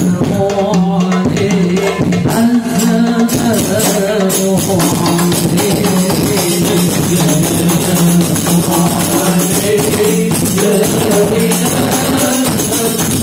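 Sholawat hadrah group playing rebana frame drums in a fast, dense rhythm while voices sing the melody, heard through a PA system. A steady low tone runs underneath.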